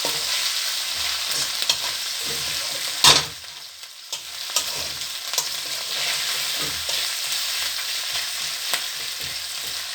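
Chopped onion, chilli, ginger and garlic paste sizzling in hot oil in a karahi while being stirred, with small scraping clicks of the spatula against the pan. A sharp knock about three seconds in, after which the sizzle briefly drops before picking up again.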